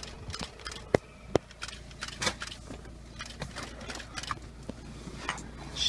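Scattered sharp clicks and light rattles over a low steady hum: handling noise inside a vehicle cabin as the camera is moved at the window. The two loudest clicks come about a second in.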